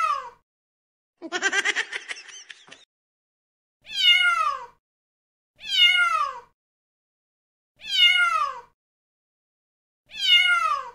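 A cat meowing, the same falling call repeated about every two seconds. A short, rapidly pulsing sound of a different kind comes about a second in.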